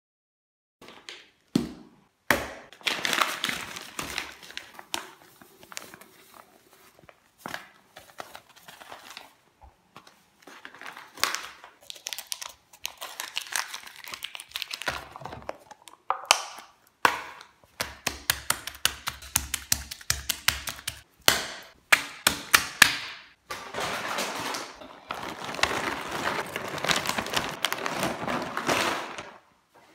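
Food being smashed and smeared by hand on a tiled floor: irregular knocks, cracks and crinkling, with a quick run of ticks partway through and a stretch of steady rubbing noise near the end.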